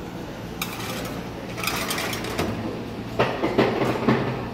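Metal sheet pan sliding onto an oven's wire rack, scraping and clanking several times, the loudest clanks about three to four seconds in, over a steady low hum.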